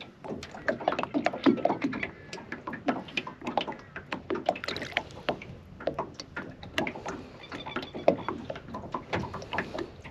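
Water splashing and sloshing against the side of a small boat as a golden perch is held and moved at the surface, with many irregular small knocks and drips.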